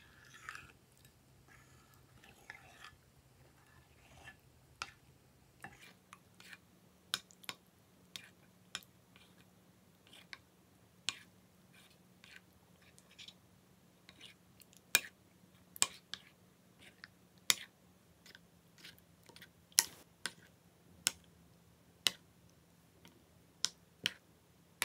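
Glossy slime being stirred with a spatula in a glass dish: sticky, wet clicks and pops at an irregular pace. It starts as a soft crackle and turns to sharper, louder clicks after about six seconds.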